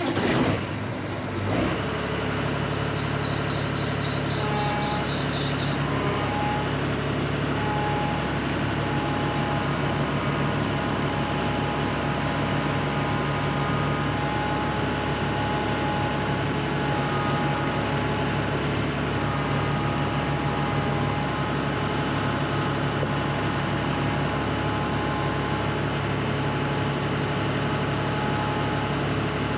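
Combine harvester engine running steadily, with a low hum and a faint, slightly wavering whine. For about the first six seconds a fast, high-pitched rattling runs over it.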